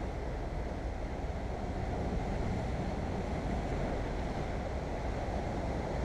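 Wind rumbling on the microphone over steady sea surf washing against shoreline rocks.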